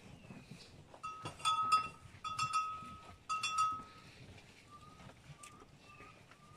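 A metal bell clanking among cattle feeding at a trough, struck in quick clusters of ringing clinks between about one and four seconds in. Faint short chirps follow near the end.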